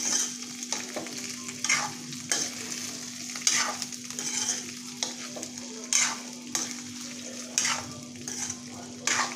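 Whole lasoda fruits (Cordia myxa) sizzling in hot oil in a metal kadhai as their remaining moisture fries off, while a metal spoon stirs them and scrapes against the pan every half second to a second. A faint steady low hum runs underneath.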